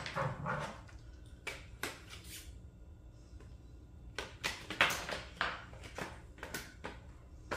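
Metal axle rod clicking and scraping against the hard plastic frame of a ride-on toy ATV as it is worked through the housing: an irregular series of short clicks and taps.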